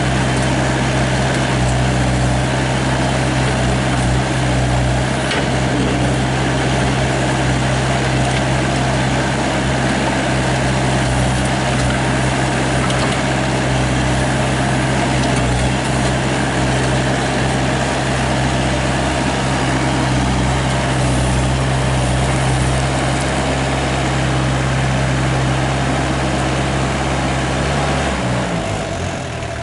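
GroundHog BH30D excavator running steadily at working throttle while digging. Near the end the engine drops in pitch as it is throttled back toward idle.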